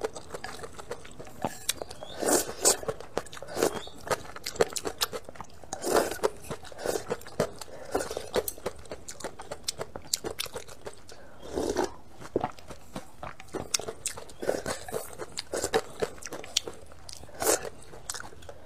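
Close-miked slurping of spicy noodle-soup broth sipped from the rim of a bowl: a few longer slurps among many small, wet mouth clicks.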